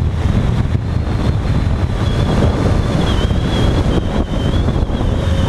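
Heavy wind rush buffeting a helmet-mounted camera microphone on a motorcycle at highway speed, a dense steady rumble with a faint thin high whine running through it.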